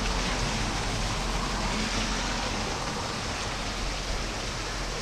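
Heavy rain in a downpour, falling with a steady, even rush of noise.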